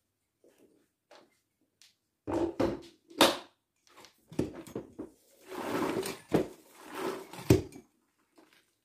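A series of knocks and clatters from things being handled and set down, with a longer rough rubbing noise in the middle and three sharp knocks standing out as the loudest.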